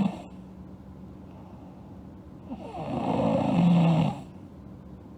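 A sleeping girl snoring: the end of one snore right at the start, then one long snore starting about halfway through and lasting nearly two seconds, with quieter stretches between.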